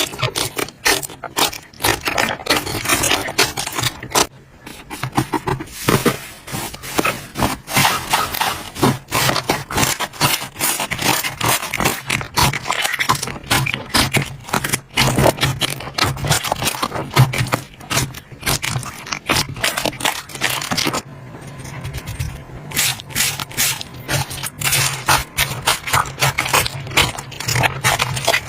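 Slime being played with by hand: a dense, irregular run of crackling and popping clicks, the sound of air pockets in the slime bursting as it is squeezed and stretched. A steady low hum sits underneath.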